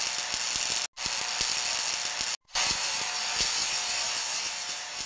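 A steady hissing crackle full of small irregular clicks, cut off by two brief silences about one second and two and a half seconds in, easing off near the end.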